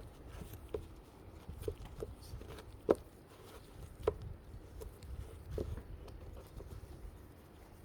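Scattered light clicks and taps of a metal clipper blade being handled, the sharpest about three seconds in.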